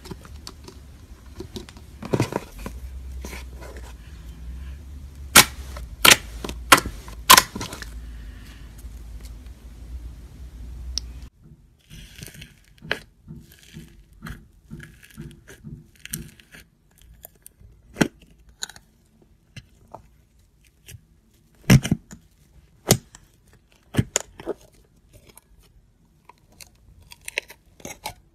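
Hands squeezing and poking slime, including slime packed with foam beads: a string of sharp pops, clicks and crackles. Four loud pops come in quick succession a few seconds in, and a faint low hum under the first part stops abruptly partway through.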